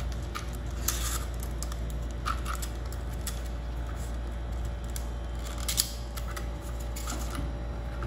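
Thin steel seal cable scraping and rustling as it is threaded through the holes of a plastic water meter's coupling nuts by gloved hands. A few short scrapes stand out over a steady low hum.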